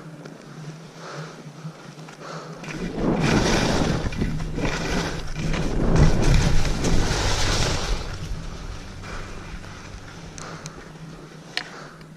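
Rushing noise of skiing downhill: wind over the microphone and skis sliding on snow. It swells loud about three seconds in, peaks around six seconds, and eases off after about eight seconds.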